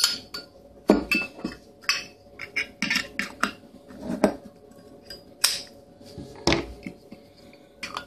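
Metal clicks and scrapes of a Zippo lighter's steel insert being pushed against and into a chrome lighter case, a dozen or so irregular clicks with the loudest about a second in and twice more past the middle. The insert does not fit this case, so it jams and butts against the case's rim.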